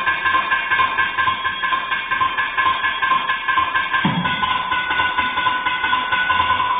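Several thavil drums played together in a fast interlocking rhythm over a steady held drone, with a deep bass stroke that drops in pitch about four seconds in.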